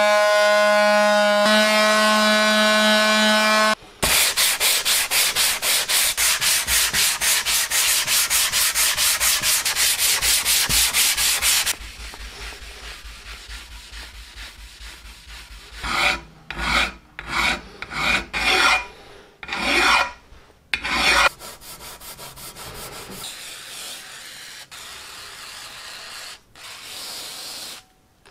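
Electric detail sander with a steady pitched hum for the first few seconds, then sanding the flat metal soleplate of a cast-iron charcoal iron with a loud, evenly pulsing rasp for about eight seconds. After that, an abrasive hand pad rubbing back and forth over the metal, quieter, with a run of louder strokes in the middle.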